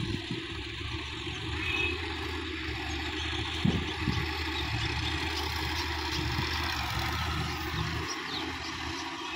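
Sonalika DI-50 RX tractor's diesel engine running steadily as it works a wet paddy field, its low hum weakening near the end. A brief thump a little before four seconds in.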